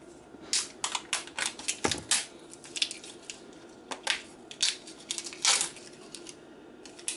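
Plastic cap and tamper seal of a small half-and-half bottle being pried and torn off by hand: a run of irregular crackling snaps and clicks, with a longer rasp a little past halfway.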